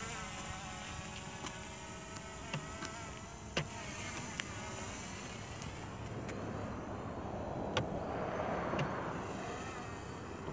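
MJX Bugs 2W quadcopter's brushless motors and propellers buzzing steadily in flight, growing louder about eight seconds in, with a few sharp ticks along the way.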